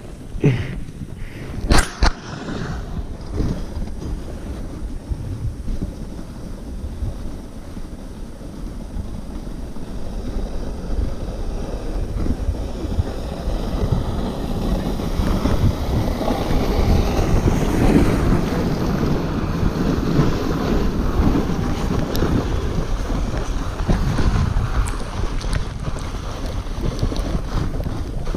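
Wind rushing over the microphone and a toboggan's runners hissing over packed snow during a fast descent, growing louder toward the middle as speed builds. A sharp knock about two seconds in, as the sled bumps through loose snow.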